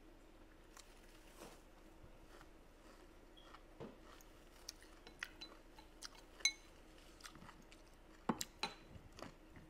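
Quiet eating sounds: chewing and mouth clicks, with scattered sharp taps on the plate. The loudest is a short ringing tap about six and a half seconds in, and a few more come near the end.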